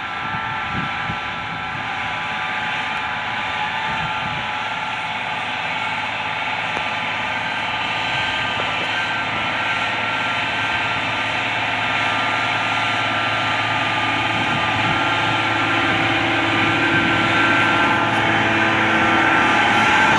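Case IH Magnum 340 tractor's diesel engine running steadily under load as it pulls a laser land leveler, with a constant whine over a low hum, growing gradually louder as it comes closer.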